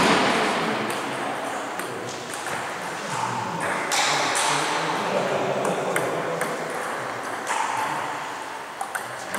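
Irregular, sharp clicks of a table tennis ball striking bats and the table, heard in a large sports hall.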